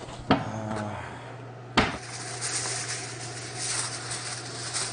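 A sharp knock, then aluminium foil rustling and crinkling as it is handled and pulled from its box.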